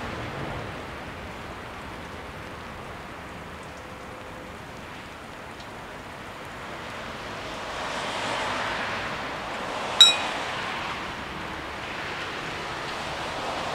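Steady hiss of rain and wet-road ambience that swells for a few seconds. About ten seconds in comes a single sharp metallic clink, as the level crossing's barrier mechanism starts to lift the booms.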